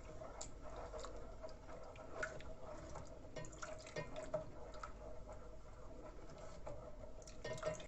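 Faint stirring of a thickening milk sauce in a saucepan: soft, scattered clicks of the utensil against the pan with wet liquid sounds, over a faint steady hum.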